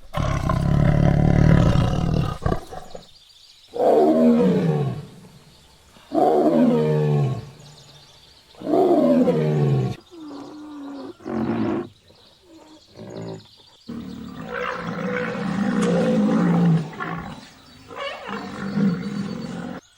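A big cat roaring: a long, deep roar, then three roars about two and a half seconds apart, each falling in pitch, followed by shorter, quieter calls.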